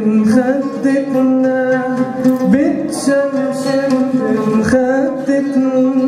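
A man singing an Arabic song in long held notes that waver and bend in pitch, accompanied by a plucked oud.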